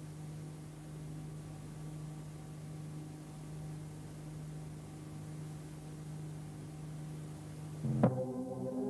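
A steady low hum and hiss with nothing else in it. About eight seconds in, a sudden click and music with several sustained tones begins.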